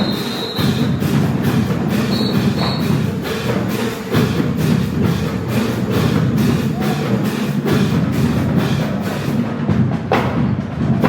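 Music for a dance routine with a steady percussive beat.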